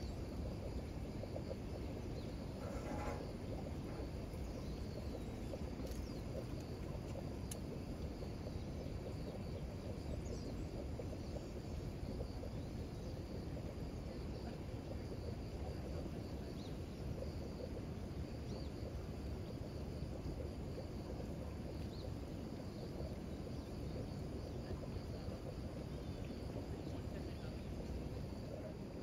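Steady ambient noise: an even low rumble, with a faint, high, unbroken chirring of insects above it.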